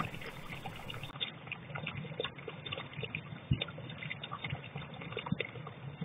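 Faint, crackly ambient sound from a garden security camera's microphone: a low hiss with scattered small clicks and ticks, the narrow, muffled sound of a cheap camera mic.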